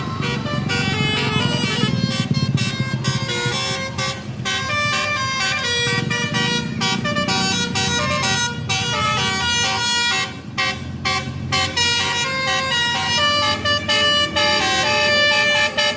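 Tour bus's 'telolet basuri' multi-note horn playing a quick melody, one held note after another, turning into short separate stabs about ten seconds in. A low engine rumble sits under it during the first few seconds.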